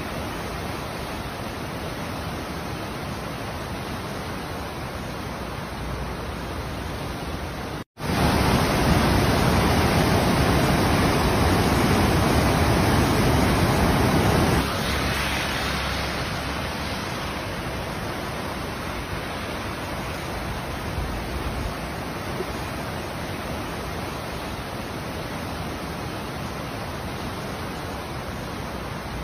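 Muddy floodwater of a river in spate rushing past in a steady, noisy rush. It cuts out for an instant about eight seconds in, comes back louder for about seven seconds, then settles to a quieter steady rush.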